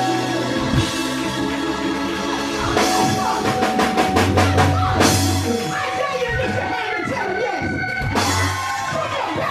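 Live gospel band music in a church praise break: a drum kit playing under held chords and bass notes, with voices over it.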